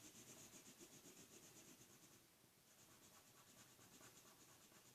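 Felt-tip marker rubbing on paper in quick back-and-forth colouring strokes, faint, about five or six strokes a second, with a brief pause a little after two seconds in.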